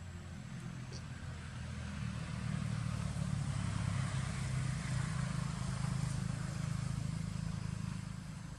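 A motor engine running steadily with a low hum, growing louder through the middle and easing off near the end.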